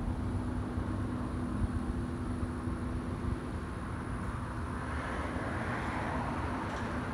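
Vehicle noise in the open: a steady low rumble and hum, with a broader rush of road noise swelling up in the second half, as of a vehicle going by.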